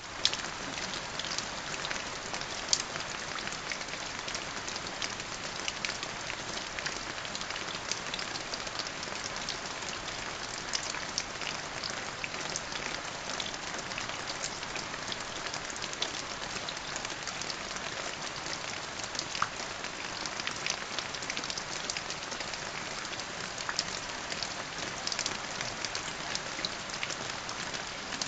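Steady rain: a dense patter of drops ticking over an even hiss, with a few louder drops standing out.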